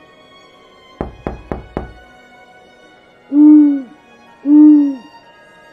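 Four quick, sharp knocks about a second in, then an owl hooting twice: two loud, low hoots, each about half a second long, over soft background music.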